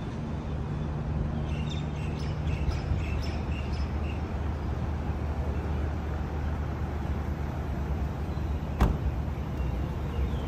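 Street traffic: a steady low rumble of car engines idling and driving past. A few faint high chirps come about two to four seconds in, and a single sharp click near the end.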